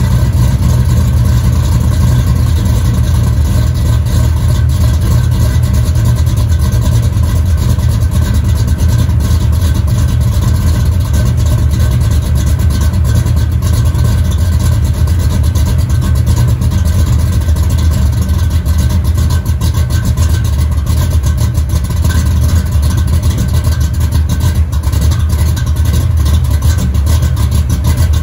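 Plymouth Duster's big-cam 360 small-block Mopar V8 idling steadily, heard from behind the car through its 3-inch exhaust with H-pipe, TTI headers and two-chamber mufflers.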